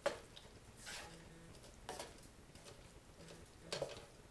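Wooden spatula stirring and scraping fried rice around a nonstick wok, making several soft, brief scrapes and taps about a second apart.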